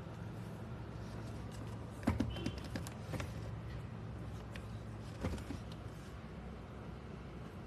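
Light clicks and taps over a steady low hum: a cluster of clicks about two seconds in, and a few more a little after five seconds.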